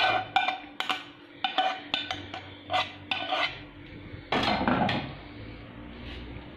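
Metal spoon clinking and scraping against a plate and a glass baking dish as cooked minced meat is scooped out and spread: a run of short ringing clinks, then a longer, louder scrape about four seconds in.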